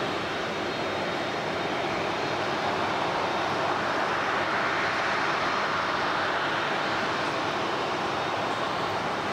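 Boeing 747's four jet engines running at taxi power: a steady rushing noise that swells somewhat about halfway through as the jet passes.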